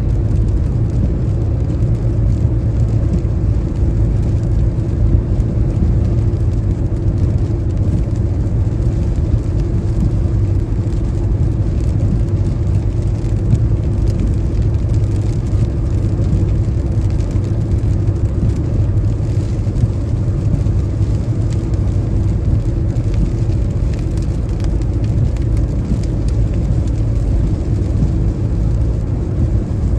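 Car driving on a highway in the rain: a steady low rumble of tyres and engine on the road, with rain noise mixed in.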